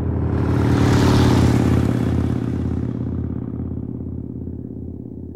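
Harley-Davidson V-twin motorcycle engine running. It swells to its loudest about a second in, then settles into an even, loping idle that slowly fades out.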